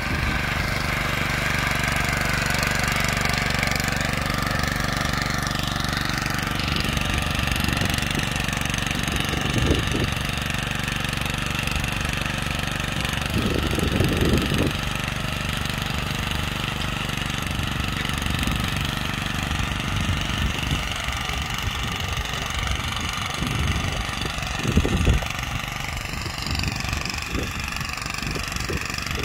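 Honda FJ500 power weeder's single-cylinder four-stroke engine running steadily under load as its rotary tines churn dry soil, with a few louder thumps now and then.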